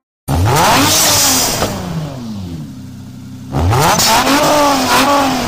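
Home-made revving-engine sound effect that starts abruptly and sweeps up and down in pitch again and again, dips to a steadier hum midway, then swells up again.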